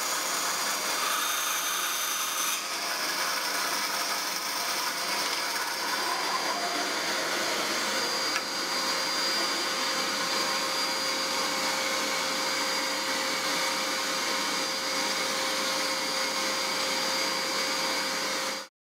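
Powerplus X180 benchtop band saw running steadily with a faint motor whine, its blade cutting thin strips of wood fed along the fence. The sound cuts off suddenly near the end.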